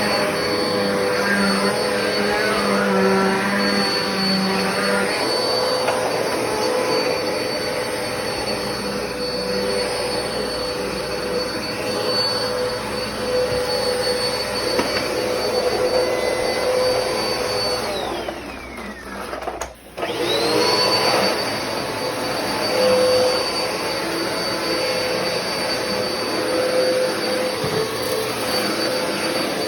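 Black and Decker vacuum cleaner running with a steady high motor whine. About eighteen seconds in, the whine falls away as the motor winds down, then it is switched back on and spins quickly up to speed again.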